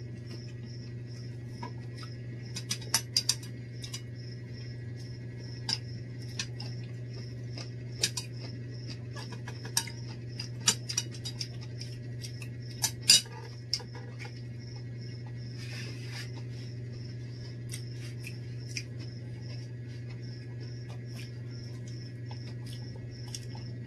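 Spoons and forks clinking and scraping against ceramic plates while eating: scattered sharp clicks, most of them in the first half, over a steady low hum.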